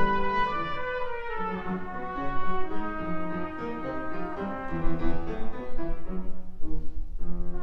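Trumpet playing a classical melody with grand piano accompaniment, the trumpet moving through a run of changing notes with a short break about seven seconds in.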